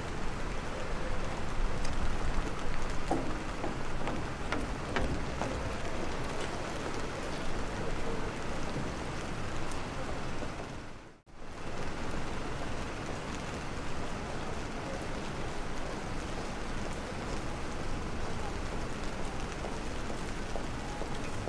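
Steady rain falling, an even hiss of drops with a few faint ticks, broken by a brief dropout about halfway through.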